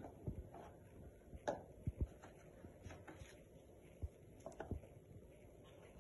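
Faint unpacking noises from a small cardboard product box: scattered light taps and knocks as the lid comes off and pieces are set down and picked up, the clearest two about 1.5 and 2 seconds in.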